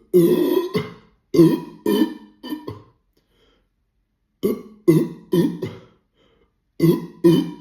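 A man's burps brought up by a litre of sparkling water, in quick runs of short, sea-lion-like belches: a longer one then three more in the first three seconds, four more starting about four and a half seconds in, and two near the end.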